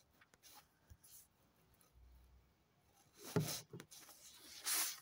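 Quiet room tone broken by two brief soft noises, one about three and a half seconds in and one near the end.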